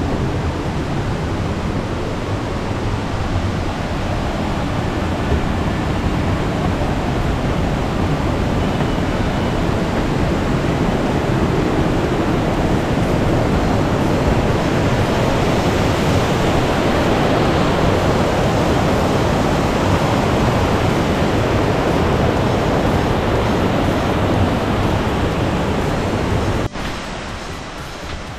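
Steady rush of the Grand Carbet river's water tumbling over rocks, swelling slightly midway, then dropping sharply near the end to a quieter hiss.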